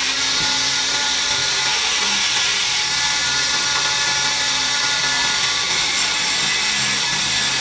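Wood lathe spinning a long wooden spindle, a steady high whirring hiss, as a hand-held turning chisel shaves the wood.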